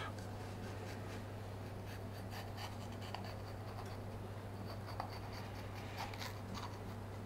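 Kitchen knife slicing lengthwise through the skin of a green horn pepper on a wooden cutting board: faint crisp scratching and crackling with scattered small clicks, over a steady low hum.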